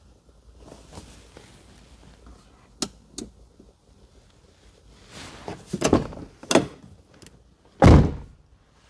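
Ford Thunderbird door being shut with a heavy, low thunk near the end, after a couple of light clicks and a few knocks a few seconds earlier.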